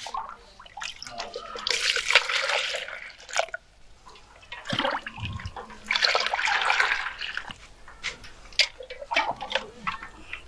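Phalsa juice poured from a steel cup into a plastic jug: two long pours of a second or more, about one and a half and six seconds in, with short splashes and knocks as the cup is dipped back into the iced juice in the steel tub.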